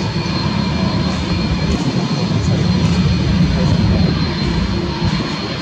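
Airbus A330-200 turbofan engines running as the airliner taxis: a steady rumble with a thin, steady high whine over it.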